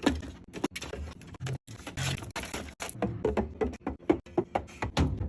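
Drinks being unpacked and stocked into a fridge: quick knocks, clinks and scrapes of cans and bottles set onto shelves, cut short every second or so by abrupt edits.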